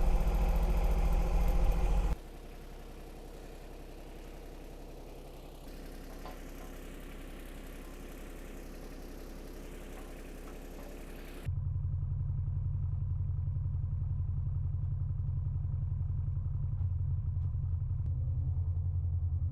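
John Deere 2210 compact tractor's three-cylinder diesel engine running steadily at idle. The sound drops abruptly quieter about two seconds in and comes back louder and deeper about eleven seconds in.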